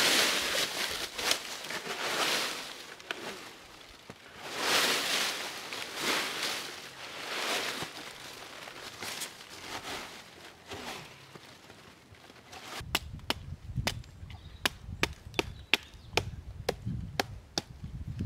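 Dry fallen leaves rustling in swells as they are scooped and pushed aside by hand. About 13 seconds in, a hatchet chopping a wooden stick, a quick run of sharp strokes about three a second.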